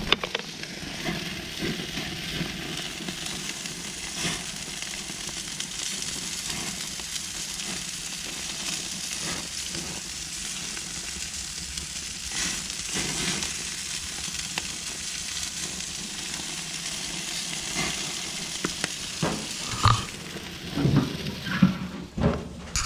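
Food sizzling as it fries in a pan: a steady hiss with fine crackles, with a few louder knocks and clatters near the end.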